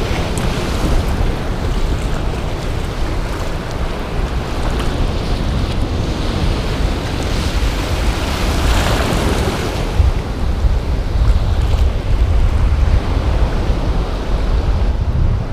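Ocean surf washing and breaking around a person wading in shallow water, with wind buffeting the microphone as a steady low rumble. A wave swells louder about eight to ten seconds in.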